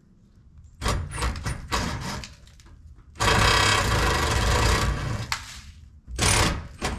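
A person moving under a rusted sheet-metal generator housing. There are a few short rustles and knocks, then about two seconds of loud scraping and rustling as the body shifts over dry leaves and gravel, and one more short burst near the end.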